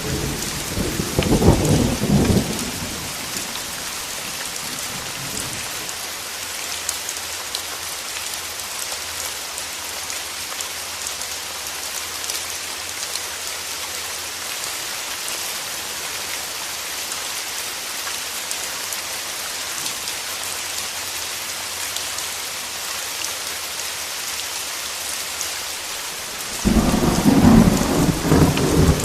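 Steady rain falling, with thunder rumbling twice: once near the start and again for the last couple of seconds.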